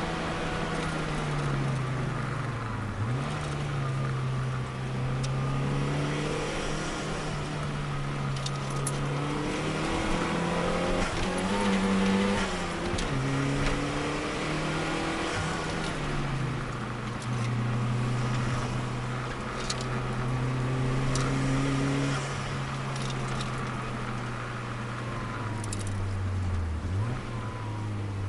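Turbocharged Nissan Micra's engine heard from inside the cabin, running hard at track speed, its note rising and falling with the throttle. The pitch drops sharply at gear changes about three seconds in and again near the end.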